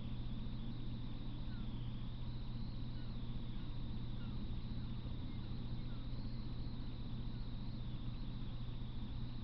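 Steady low electrical hum with hiss and a faint wavering high whine, the background noise of a camera's microphone with no train passing. A few faint short chirps come and go.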